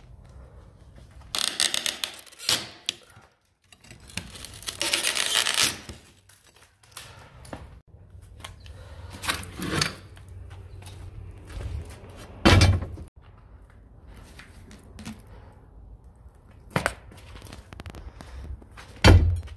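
Painted wood trim being pried off an old door frame with a flat pry bar: two long stretches of wood creaking and tearing loose, then several sharp knocks, the loudest about two thirds of the way through and just before the end.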